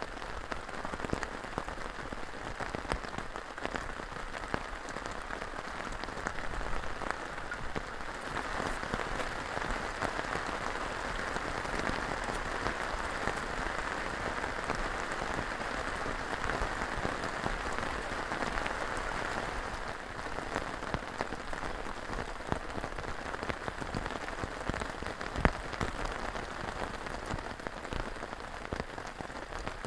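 Heavy rain falling steadily on a tarp shelter, with single drops ticking. It grows heavier for about ten seconds in the middle, and there is one sharp tap near the end.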